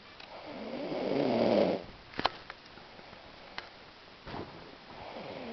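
Snoring: one long wavering snore that grows louder over about a second and a half, then a pause, and the next snore building up near the end. A short click comes about two seconds in.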